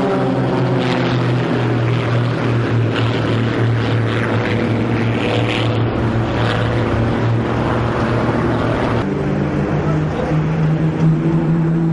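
Piston engines of aerobatic propeller planes giving a steady drone as the formation flies its display. About nine seconds in, the engine note jumps to a higher pitch.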